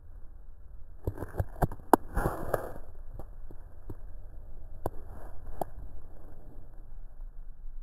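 Handling noise from a hand-held camera: fingers rubbing and knocking near the microphone. There is a cluster of sharp clicks and rustling about a second in, then a few single clicks over a low rumble.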